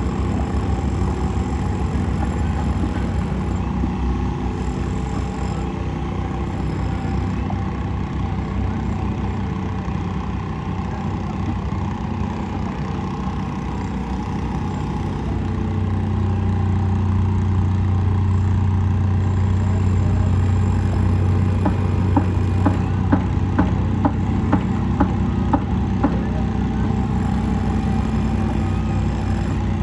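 An engine running steadily with a low hum, louder from about 15 seconds in, with a series of sharp taps, about two a second, near the end.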